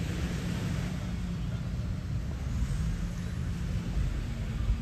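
A motor engine running steadily, a low hum under a general outdoor background noise.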